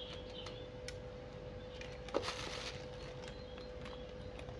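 Handling noise: small clicks and taps of plastic speedlite flash bodies being turned over in the hands, with a knock about two seconds in followed by a brief crinkle of bubble wrap. A faint steady hum sits underneath.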